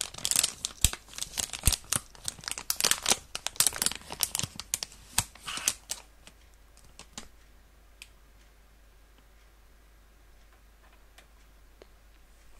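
Rustling and clicking of a black detachable Wi-Fi antenna being handled close to the microphone as it is brought to the adapter card's antenna connector. The sound is dense for about six seconds, then thins to a few scattered clicks.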